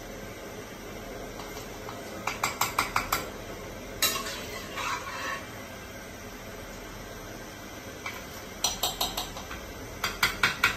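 A metal utensil taps quickly against a cooking pot in three short runs of sharp clicks, with a single louder clank about four seconds in and a little scraping after it.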